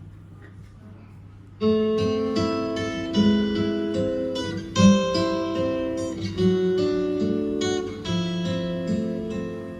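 Guitar music played back through hi-fi loudspeakers (Coherent Audio Model Twelve Neo Signature), starting about a second and a half in out of quiet room noise; single plucked notes ring on over one another.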